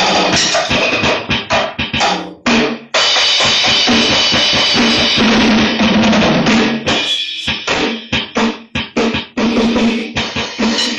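Drum kit played hard and fast, dense kick, snare and cymbal hits in a continuous groove with fills.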